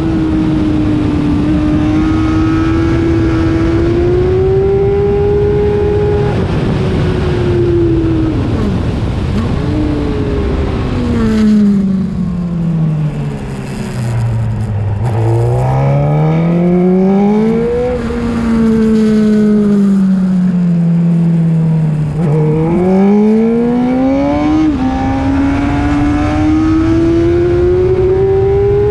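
Honda CBR600RR's inline-four engine at high revs, with heavy wind rush. The revs fall and rise through the corners, sinking to their lowest about halfway through, then climbing again with a sudden dip at each upshift.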